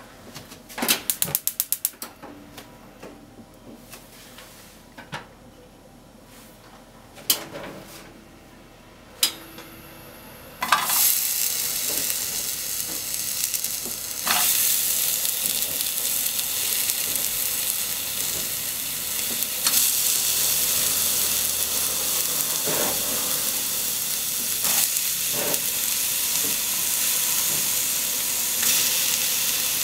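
Sliced negi and onion sizzling in oil in a nonstick frying pan. The steady sizzle starts about a third of the way in and gets louder a few seconds later as more is added, with occasional knocks of the utensil on the pan. Before the sizzle there is a quick run of sharp clicks and a few separate knocks.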